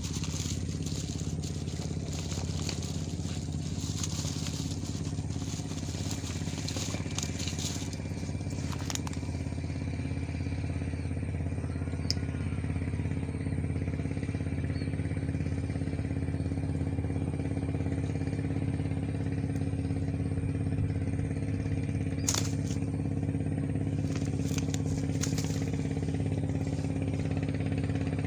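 An engine running steadily at an even pitch, with crackling handling rustles over it during the first several seconds and again a little after twenty seconds.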